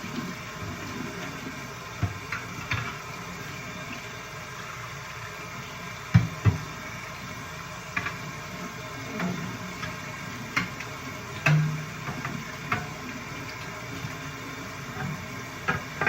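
Scattered light clicks and knocks, with two louder thumps about six seconds in, over a faint steady background: parts and objects being handled and set down.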